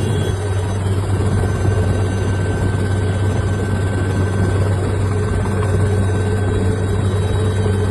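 Helicopter running steadily, a constant low drone with thin steady tones above it.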